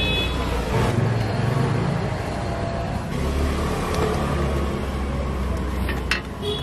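Street traffic: a motor vehicle's engine running close by, a steady low rumble that swells in the middle, with a few sharp clicks near the end.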